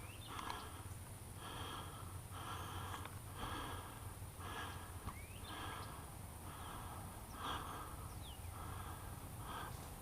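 A person breathing close to the microphone, in and out at an even pace of about one breath each second.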